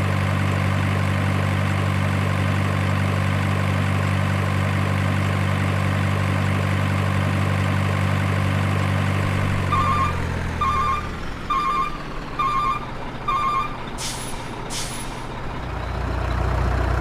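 Electronic truck sound effects from an RC toy truck's sound module: a steady diesel-engine hum, then five reversing beeps, two short air-brake hisses and a low engine hum swelling near the end.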